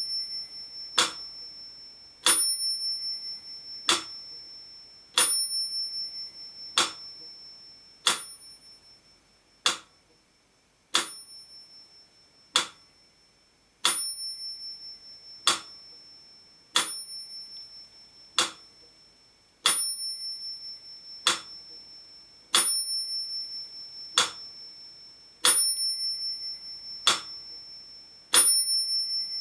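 Mechanical pendulum metronome ticking at 40 beats a minute, one sharp tick about every one and a half seconds, the gaps alternating slightly long and short. Every second tick carries a brief high metallic ring.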